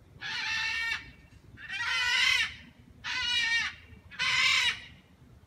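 Young baby crying in four short wails, each under a second, spaced about a second apart.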